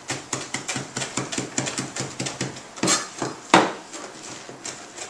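Chef's knives mincing fresh cilantro on cutting boards: rapid, uneven knocks of the blades on the boards, several a second, with two louder knocks about three seconds in.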